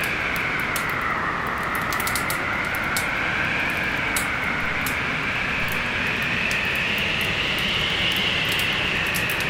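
Storm wind howling, its pitch slowly wavering up and down over a steady rush, with frequent sharp crackles and pops from a wood fire.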